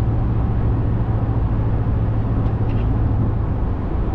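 Steady road and engine noise of a moving car, a constant low hum with an even rush above it, heard from inside the vehicle.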